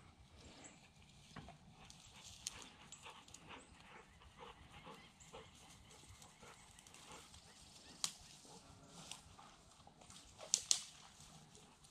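Irregular rustling and light crunching steps through dry field cover, with a few sharper snaps about eight seconds in and twice more near the end.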